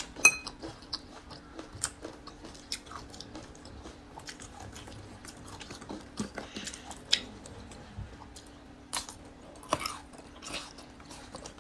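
Scattered close-miked crackles and wet clicks as fingers peel the soft brown skin off a pickled single-clove garlic bulb, over a faint steady hum.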